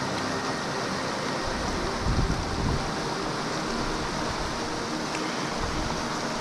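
River current rushing steadily over rocks, with a brief low bump about two seconds in.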